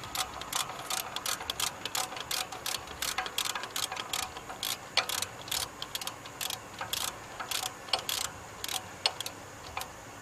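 Socket ratchet clicking in quick runs of strokes while snugging down a 14 mm alternator mounting bolt, left short of full tight so the alternator can still slide for belt adjustment.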